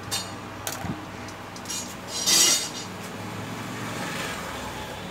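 Light clicks and clinks of small repair tools being handled at the workbench, with a brief louder hiss about two seconds in.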